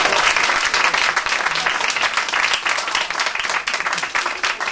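Audience applauding, a dense run of claps that thins slightly near the end.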